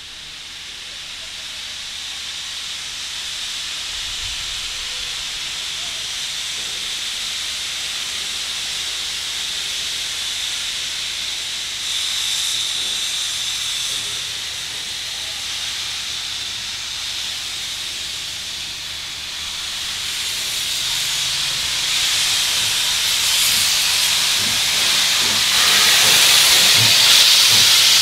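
NSWGR 32 class steam locomotives hissing steam as they get under way, a steady high hiss that grows louder toward the end.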